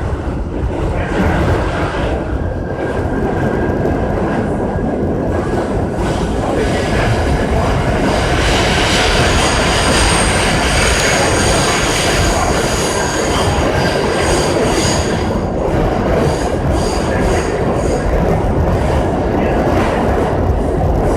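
New York City Subway G train running, with a steady loud rumble, a high wheel squeal through the middle, and a run of wheel clicks on the rail joints after it.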